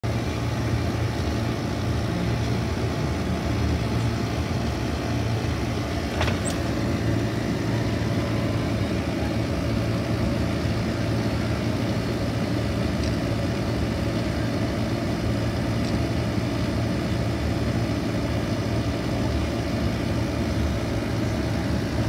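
Car's engine and road noise heard inside the cabin while driving slowly, a steady low hum. A single click about six seconds in.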